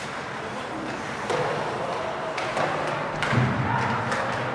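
Sharp knocks of hockey sticks striking during play, three of them about a second apart, with players calling out after the last one.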